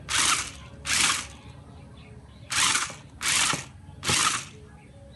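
Toy RC stunt car with mecanum roller wheels: its small electric drive motors and gearboxes whir in five short bursts of under half a second each as it is driven in jerks over carpet.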